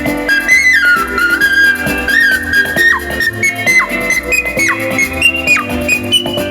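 Ocarina playing a slow melody over an accompaniment, several notes ending in quick downward slides.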